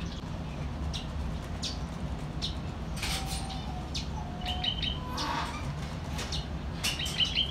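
Many small caged birds chirping and calling, a scatter of short chirps with quick trills about midway and again near the end, and a few short low whistled notes, over a steady low rumble.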